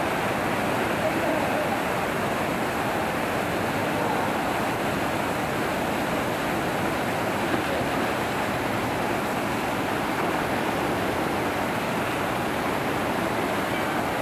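Water pouring over a low weir into churning white water: a steady rushing noise with no breaks.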